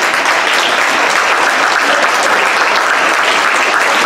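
Crowd applauding: many hands clapping together in a steady, dense patter in a large hall.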